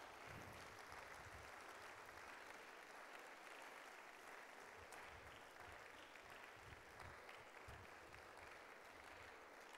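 Faint, steady applause from an audience.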